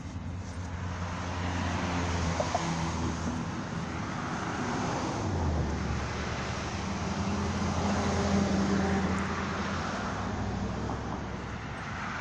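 Road traffic: vehicles going by one after another, their tyre noise swelling and fading, over a steady low engine hum.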